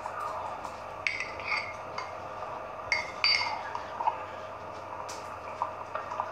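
A spoon stirring a milky drink in a tall drinking glass, clinking sharply against the glass several times, heard as playback from a TV speaker.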